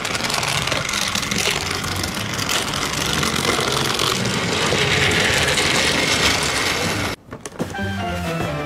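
Steady engine-like vehicle running noise as a Tayo toy bus travels along a plastic track. It cuts off abruptly about seven seconds in, and music starts near the end.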